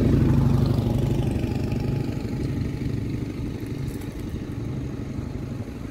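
A motor vehicle's engine passing close by on the street: a low, pulsing engine hum, loudest at the start and fading away over the next few seconds.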